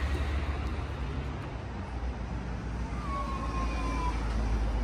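Busy city street ambience: a steady low rumble of road traffic, with a faint thin whine sliding slightly downward about three seconds in.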